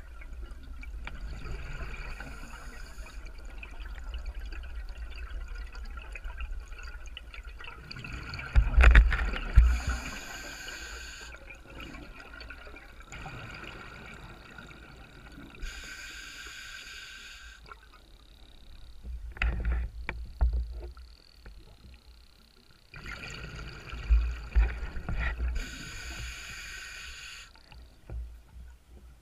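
Underwater sound through a camera housing: bursts of a diver's exhaled air bubbles about every six or seven seconds over a low water rumble, with a few dull knocks.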